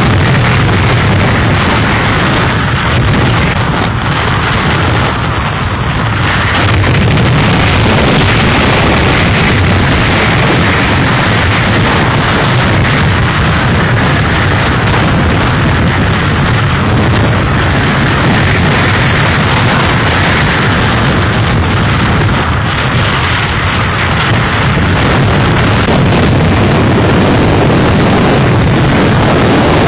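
Hurricane-force wind blowing hard and buffeting the microphone: a loud, dense rush of noise that eases slightly twice.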